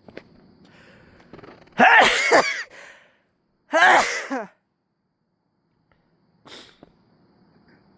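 A man sneezing loudly twice, each sneeze a sudden voiced burst under a second long, about two seconds apart, followed by a much fainter short sound.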